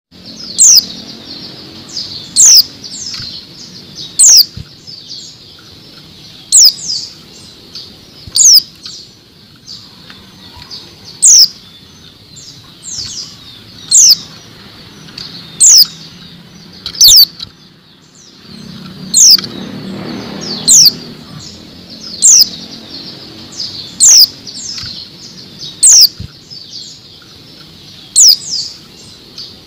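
Female white-eye (pleci) giving short, very high, down-slurred call notes about every second and a half, with some wing fluttering in its cage.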